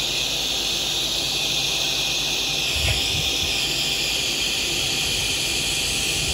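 Quick 881D hot air rework station's handpiece blowing a steady hiss of hot air, its newly replaced heating element working. A soft bump about three seconds in.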